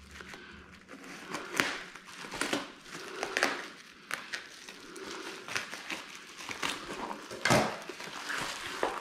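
Pink plastic bubble wrap around a package being cut with scissors and pulled apart by hand, crinkling and crackling in irregular bursts, with a louder rustle about seven and a half seconds in.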